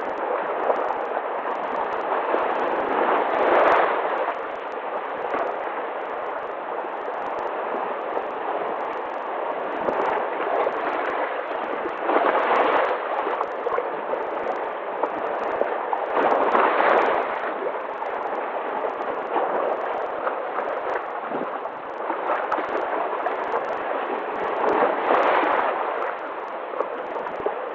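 Ocean waves washing in a continuous rush of surf, swelling louder four times as waves break.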